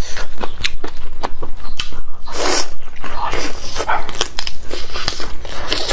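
Close-miked eating: crisp crunching bites and chewing of crispy fried food, a rapid run of sharp cracks and clicks, with a longer, fuller crunch about two and a half seconds in.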